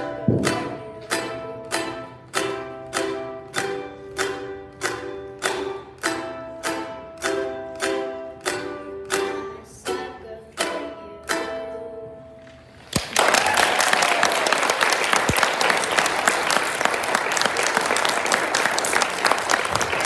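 Ukulele strummed in a steady rhythm of chords, about two strums a second, fading slightly as the song ends. About 13 seconds in, audience applause starts and carries on to the end.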